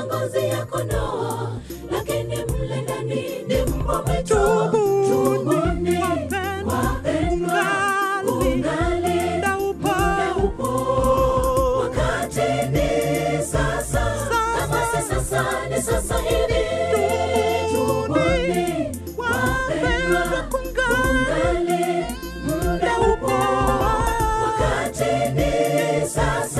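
Mixed choir of men's and women's voices singing a gospel song, over a backing of steady low bass notes and a percussive beat.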